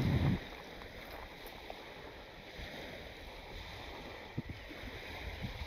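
Faint, steady outdoor noise of wind and water lapping at the shoreline, with a brief low wind rumble on the microphone at the start.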